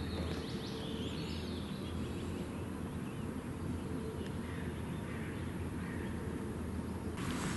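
Small birds chirping and trilling in the surrounding bushes, most busily in the first couple of seconds, over a steady low outdoor background rumble.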